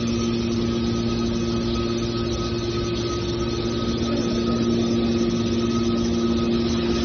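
Industrial machinery running with a steady hum made of several constant tones over a mechanical noise bed, holding level throughout.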